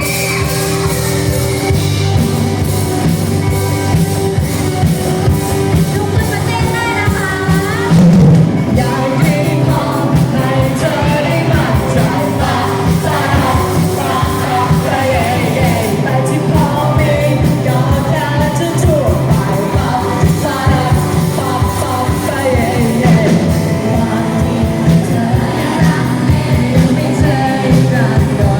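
Pop-rock song with singing over a steady bass and drum beat.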